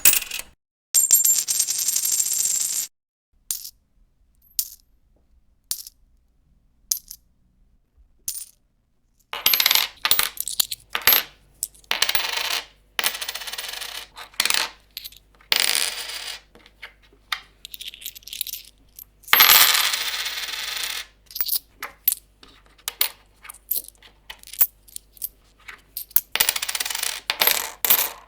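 Coins clinking and jingling in a run of separate short effects: a ringing metallic jingle about a second in, a few scattered single clicks, then repeated bursts of coins clattering and jingling together from about nine seconds on.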